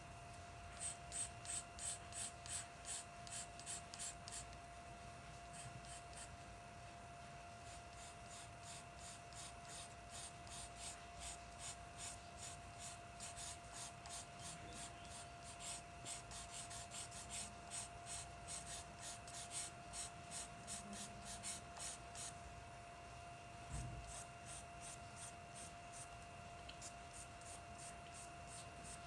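Charcoal pencil scratching on drawing paper in quick short strokes, about four a second, in runs with short pauses, as hair is shaded stroke by stroke. A faint steady hum sits underneath, and there is one soft knock about two-thirds of the way through.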